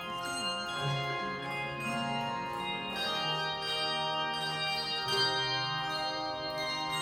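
Handbell choir playing ringing, sustained chords, with fresh notes struck every second or so over a held low note.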